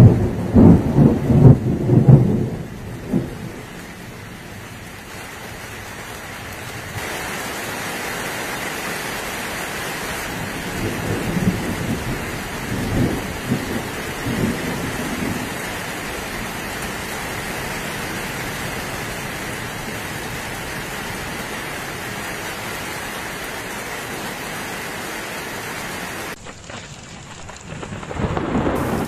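Thunderstorm: rain falling on a translucent corrugated plastic patio roof, with loud thunder rumbling through the first three seconds and softer rumbles about 11 to 15 seconds in. The rain gets heavier about 7 seconds in.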